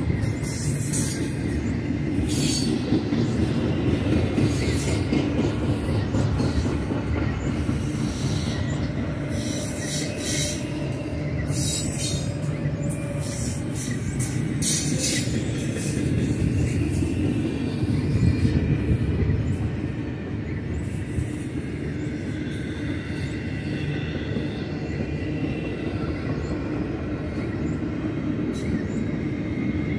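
Double-stack intermodal container train's well cars rolling past: a steady rumble of steel wheels on rail, with repeated short high squeals from the wheels, most frequent in the first half.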